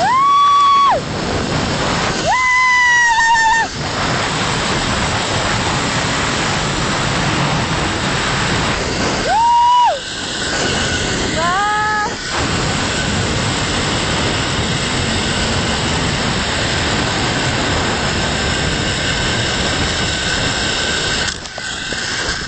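Steady rush of wind over the microphone as a rider speeds down a zipline, with four long, high yells, two early and two around ten to twelve seconds in. The rush drops off near the end as the rider reaches the landing platform.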